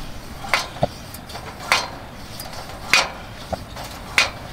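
About half a dozen sharp metallic clicks and clinks at irregular intervals over a steady faint hiss, around a Petromax HK500 kerosene pressure lantern being preheated, its blue preheat flame burning under the mantle.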